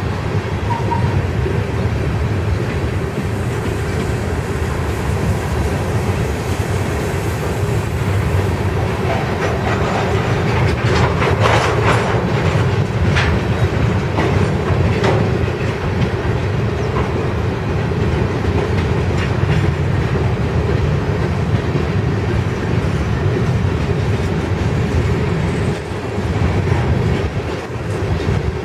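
Freight cars (tank cars, then covered hoppers) rolling past at steady speed: a continuous rumble of steel wheels on rail with clickety-clack, and a cluster of sharper metallic clanks around the middle.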